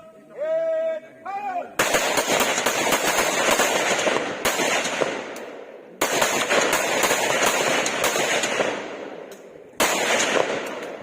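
Automatic gunfire in three long bursts of rapid shots, each trailing off. The first begins about two seconds in and the next two follow about four seconds apart.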